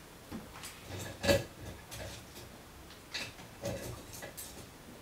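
A few scattered knocks and clicks of objects being handled and set down, the loudest about a second in.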